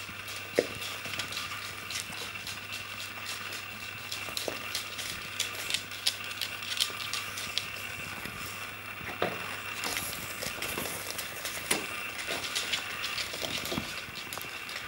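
Puppies scrambling and playing on a wooden floor: many small irregular clicks and scratches of claws, with fabric rustling as they tug at a dog bed, over a steady faint hum.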